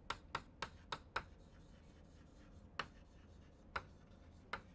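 Chalk writing on a blackboard: sharp taps and short strokes of the chalk against the board, a quick run of about six in the first second, then a few spaced-out taps.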